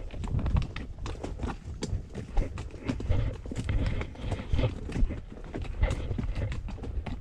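Horses' hooves clip-clopping at a walk along a trail, an irregular run of sharp knocks over a low rumble.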